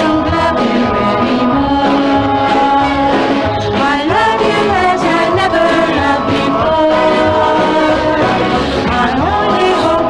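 Doo-wop vocal group singing in close harmony, with long held notes that slide between pitches over a steady bass beat.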